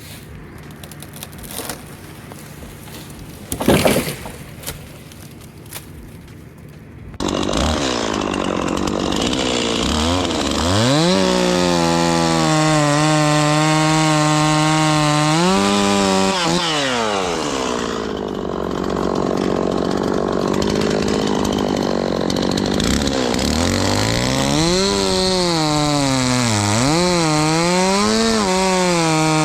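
A loud knock, then a two-stroke chainsaw starts suddenly about seven seconds in. It revs up and holds at high speed, drops back briefly, then revs up and down again.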